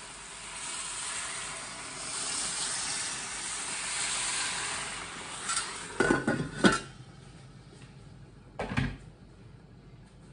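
Hot water poured from an electric kettle into a hot stainless-steel pan of frying chicken, hissing and sizzling steadily. About six seconds in, the steel lid clatters onto the pan with several sharp metal clanks, and one more metal clank follows a couple of seconds later.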